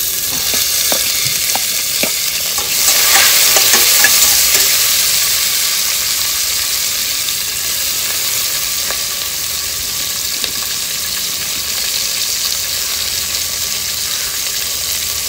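Sliced onions sizzling as they drop into hot oil with whole spices in a pressure cooker, the frying hiss swelling about three seconds in as more onions go in. A few light clinks of a spatula against the steel plate in the first two seconds.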